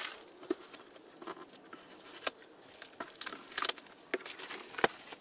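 Cardboard box being handled and opened: scattered light taps, scrapes and crinkles, with a few sharper clicks.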